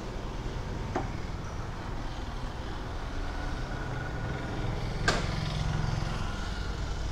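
Steady low rumble of a motor vehicle engine running, with a single sharp click about five seconds in.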